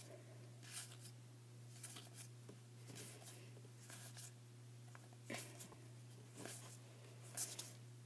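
Magic: The Gathering trading cards being flipped through by hand, each card sliding off the stack with a soft, faint swish, several times, over a steady low electrical hum.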